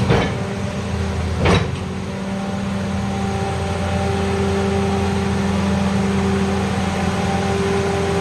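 Caterpillar 336D excavator's diesel engine running steadily with a low, even hum. Two short bursts of noise come near the start and about a second and a half later.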